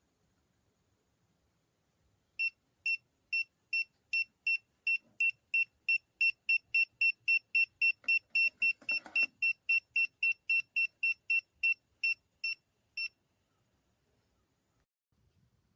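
Kiprim gas leak detector's audible alarm beeping: short high-pitched beeps that start about two a second, quicken to about four a second, then slow and stop. The faster beeping signals a stronger gas concentration at the probe, and it falls silent in clear air. A brief rustle of handling comes about eight seconds in.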